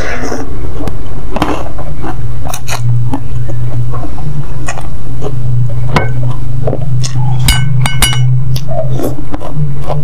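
Close-miked slurping and chewing of spicy instant noodles, with many short wet clicks from the mouth. Near the end a spoon clinks twice against the ceramic bowl, ringing briefly. A steady low hum runs underneath.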